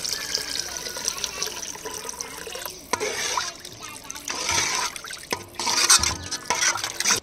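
Tamarind water pouring into a pot of onion-tomato curry base, then the gravy being stirred with a spoon from about three seconds in, with a few knocks of the spoon against the pot.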